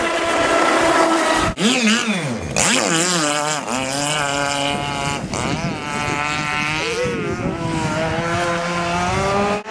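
Electric radio-controlled speedboats running at speed, the high whine of their motors rising and falling in pitch as they pass and turn. Several whines overlap at once, and the sound cuts out briefly twice early on.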